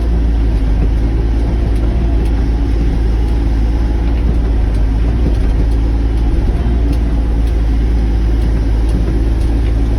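Sany mini excavator's diesel engine running steadily under work.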